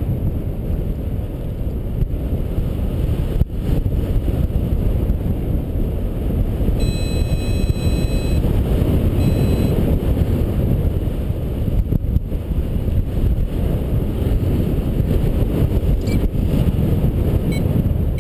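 Wind rushing over the microphone of a paraglider in flight, a dense low rumble. A flight variometer on the pilot's instrument pod sounds through it: a held tone about seven seconds in, another shortly after, and a few short pips near the end.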